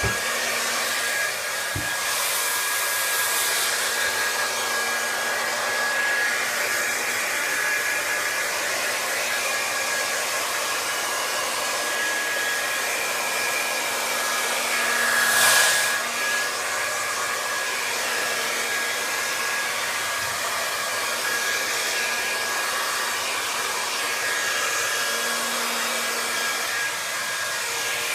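Hair dryer blowing steadily with a thin whine, drying a wet kitten; it swells louder for a moment about halfway through.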